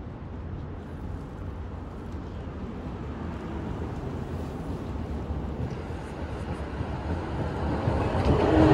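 Munich tram approaching a stop, its low rumble on the rails growing steadily louder as it nears; near the end a slightly falling whine comes in as it brakes.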